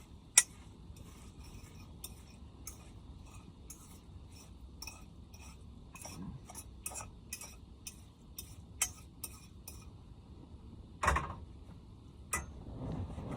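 A fork clinking and tapping against a pan in short irregular clicks, about one or two a second, as eggs are eaten straight from the pan. A louder dull knock comes about eleven seconds in.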